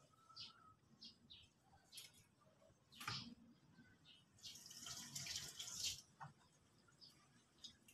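Faint scattered bird chirps, with a single click about three seconds in and a short hissing rush about halfway through.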